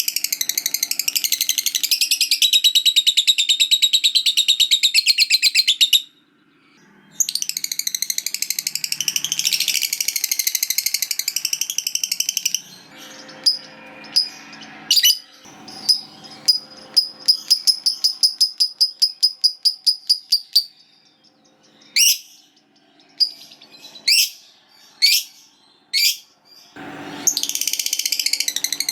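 Lovebird giving its long, rapid chattering trill, the 'ngekek panjang' (long ngekek) prized in song birds. It breaks off about six seconds in and starts again a second later for about five more seconds. Then come a run of quick, sharp chirps at about four a second, a few separate rising chirps, and another chattering burst near the end.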